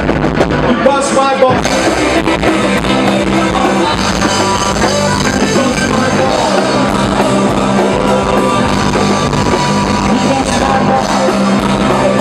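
Live rock band playing loudly, with electric guitar and drums.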